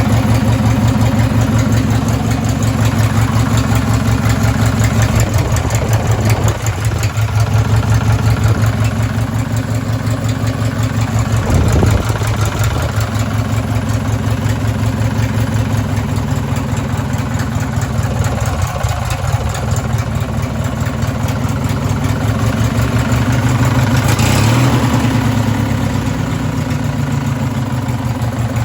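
Racing lawn mower engine running at idle with a steady rapid pulse and a knock that the owner takes for rod knock.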